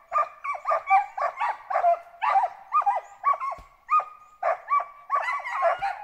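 Hunting dogs barking fast and without a break, about three barks a second, baying at a squirrel up in the trees.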